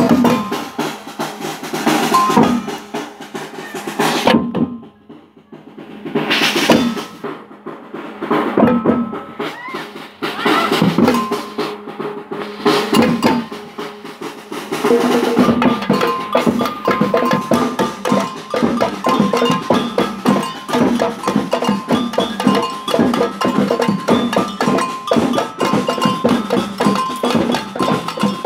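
Samba band drumming on large surdo bass drums and other drums. The beats are broken and stop-start with a brief near-pause about five seconds in, then settle into a steady, dense groove from about halfway through.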